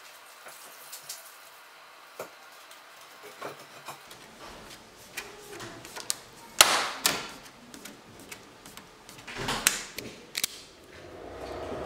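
Plastic diffuser cover being pressed into an aluminium corner LED profile by hand: scattered light clicks, then sharper snaps about six and a half and nine and a half seconds in as the cover seats, with plastic rubbing on the metal.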